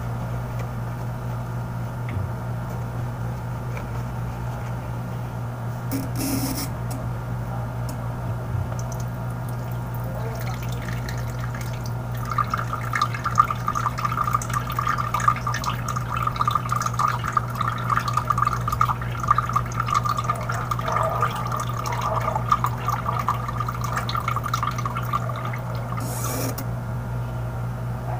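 Kitchen tap running water onto a surgical face mask held in the stream, splashing and dripping off it, from about 11 seconds in until it stops near the end. A steady low hum runs underneath throughout.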